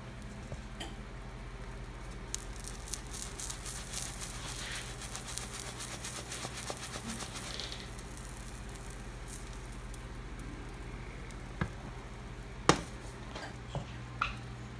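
Omelet frying in a nonstick pan: a light sizzle and crackle, busiest in the first half, over a steady low hum. Near the end come a few sharp clacks, one much louder than the others.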